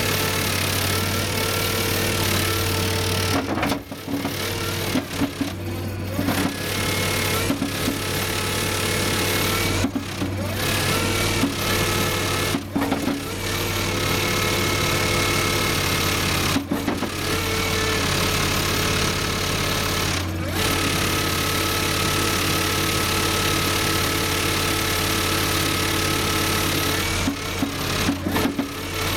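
Skid steer loader engine running with a hydraulically driven sifting bucket rattling steadily as it shakes soil and stones, the soil falling through its bottom. The noise dips briefly a few times.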